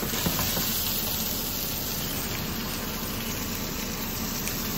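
Chicken frying in a pan: a steady sizzling hiss.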